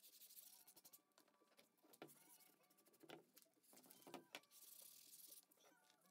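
Very faint rasping of a kitchen sponge rubbing acrylic paint onto a canvas, with a few soft knocks.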